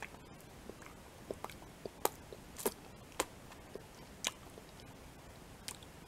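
Close-miked wet mouth sounds from sucking and licking an umbrella chocolate on a plastic handle: a string of sharp, irregular lip smacks and wet clicks, the loudest about two to three seconds in.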